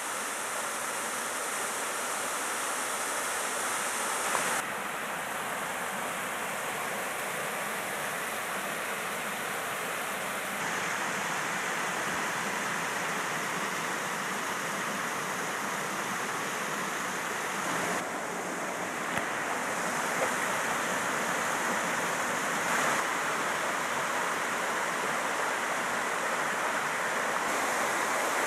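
Rushing water of a mountain stream cascading down waterfalls in a rocky gorge: a steady, dense rush whose tone changes abruptly a few times.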